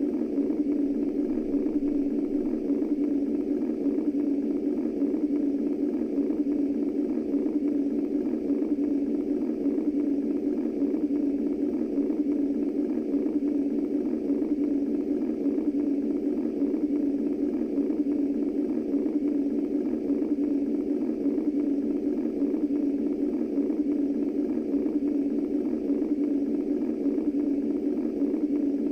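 Womb-style white noise from a sound machine: a steady, low-pitched whooshing hiss that never changes.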